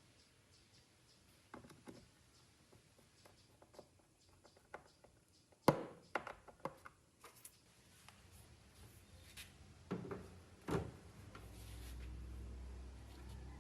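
Scattered light knocks, clicks and rubbing of hard parts being handled, with two louder knocks. A low steady hum comes in near the end.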